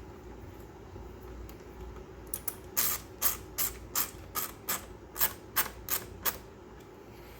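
Ratcheting crimp tool clicking about a dozen times over roughly four seconds, a few clicks a second, as it crimps a connector joining the bilge pump's ground wire to the bilge ground wire.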